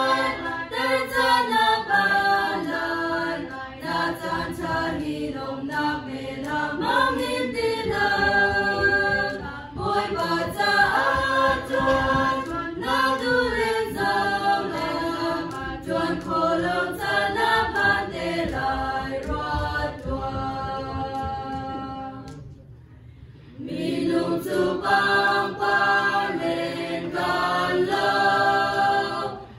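Small mixed choir singing a hymn unaccompanied, picked up through a pulpit microphone. The singing breaks off for about a second roughly three quarters of the way through, then starts again.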